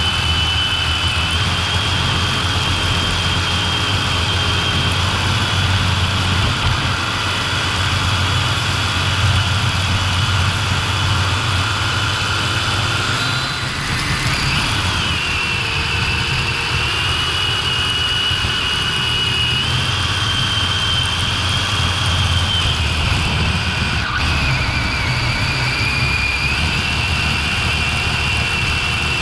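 Electric motor and gear drive of an Axial Capra RC rock crawler whining as it drives, the pitch stepping up and down with the throttle and easing off briefly about halfway, over a steady low rumble.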